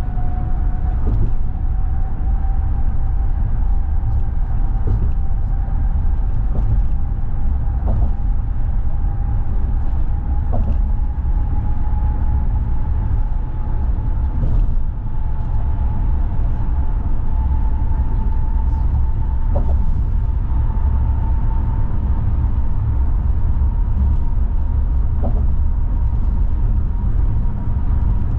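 Car driving at highway speed, heard from inside the cabin: a steady low rumble of tyres and engine, with a thin whine that rises slowly in pitch and a few faint knocks.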